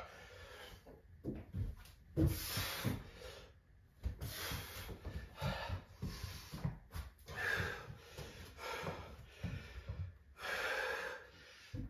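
A man breathing hard during an exercise, long breaths in and out about every couple of seconds, with soft low thuds of hands and shoes on a rubber floor mat.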